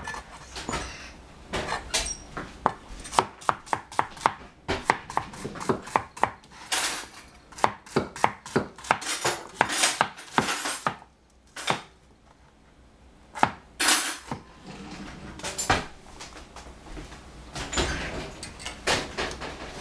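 Rectangular Chinese-style cleaver slicing cucumbers on a plastic cutting board: quick, even knocks of the blade on the board, which stop about eleven seconds in, followed by a few scattered single strokes.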